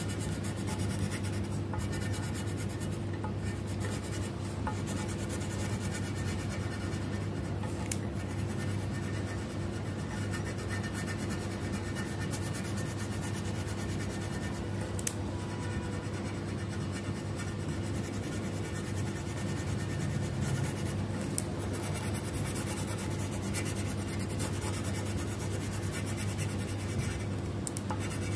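Colored pencil scratching on paper in fast, continuous back-and-forth shading strokes, over a steady low hum.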